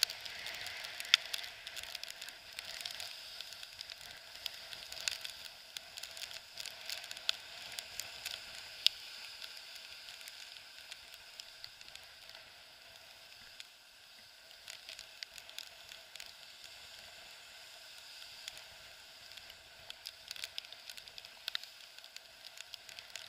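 Choppy water hissing and crackling around a stand-up paddleboard as it runs downwind through whitecaps, with many scattered sharp clicks of spray and drops hitting the camera.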